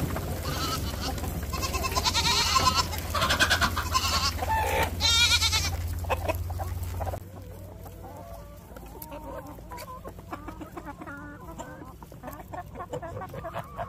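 A flock of laying hens clucking and squawking with many overlapping calls, loud at first. About seven seconds in it drops to quieter, softer clucking.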